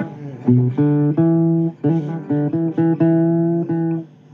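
Blues guitar playing a phrase of single plucked notes, which dies away shortly before the end.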